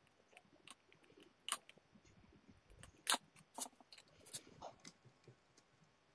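Faint, scattered clicks and scrapes of plastic as a Bluetooth speaker's small control panel is handled and worked loose from its casing, with the sharpest click about three seconds in.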